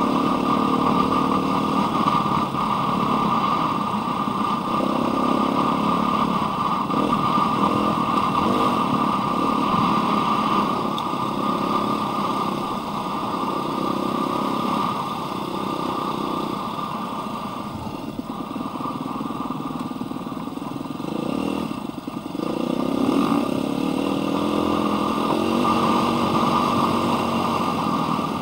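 Dirt bike engine running under way, heard from the rider's helmet camera, its pitch rising and falling as the throttle is worked along the trail. It eases off for a few seconds about two-thirds of the way through, then pulls again.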